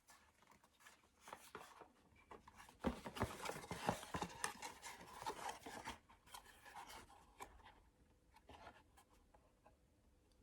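Faint rustling, scraping and light clicks of a multitool's box and sheath being handled and unpacked, busiest about three to five seconds in and tapering off near the end.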